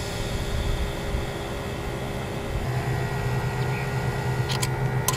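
ViAir 400P 12-volt portable air compressor running and pushing air through a dial-gauge inflator chuck into a trailer tire, a steady hum and hiss mixed with the pickup truck's engine idling. Two short clicks come near the end.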